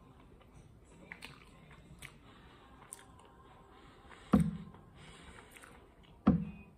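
Quiet chewing with a few soft mouth clicks, then two sudden thumps about two seconds apart, the first about four seconds in.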